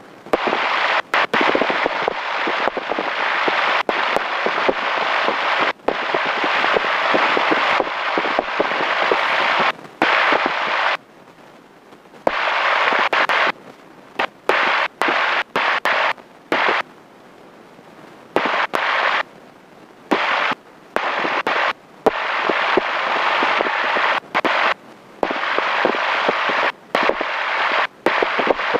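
Rushing cabin noise of a taxiing light airplane, picked up by the headset microphones on the intercom. It cuts in and out abruptly many times, with gaps from a split second to several seconds long, as the intercom's squelch opens and closes.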